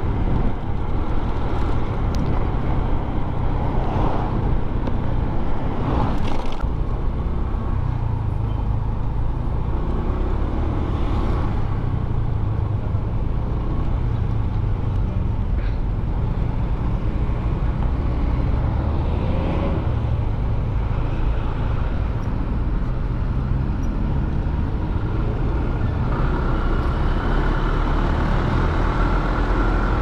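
Riding noise from a Honda Click 125i scooter: its single-cylinder four-stroke engine running steadily at road speed under a constant low rumble of wind buffeting the camera microphone, with a few brief louder swells from passing traffic.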